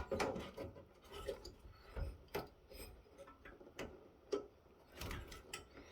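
Light, irregular clicks and taps of tools and metal parts being handled inside an opened network switch chassis, with a few small rattles, as parts are worked loose.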